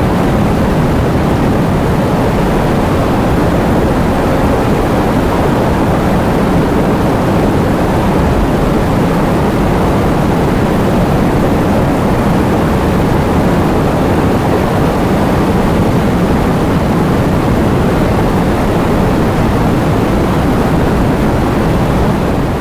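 Heavy rain with wind, a loud, steady, dense rush of noise that is heaviest in the low range.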